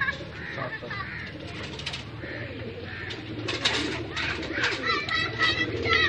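Small caged Australian parrots chirping and twittering, with a run of quick repeated chirps in the last two seconds, over a low steady hum.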